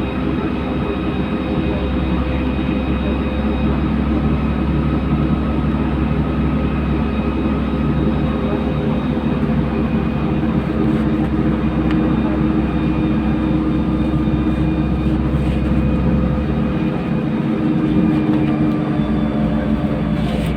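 LiAZ-5292.67 city bus heard from inside the passenger cabin while driving: the engine runs steadily under a constant road and drivetrain noise, its pitch shifting slightly partway through.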